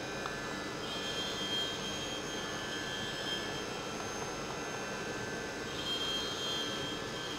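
CNC milling machine running: a steady mechanical hum and hiss with a high whine that comes and goes.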